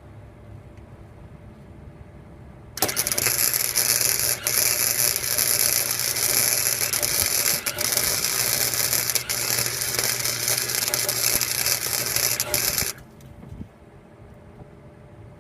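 Flux-core wire welder running a bead on steel pipe: a harsh, steady crackle that starts abruptly about three seconds in, breaks off briefly a few times, and stops abruptly near the end.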